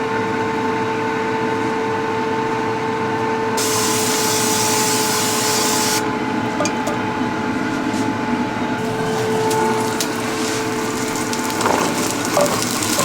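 Steady hum of a running kitchen appliance fan. Over it, a hiss comes in about three and a half seconds in and cuts off about two seconds later, then returns as a hiss with a few clicks over the last few seconds.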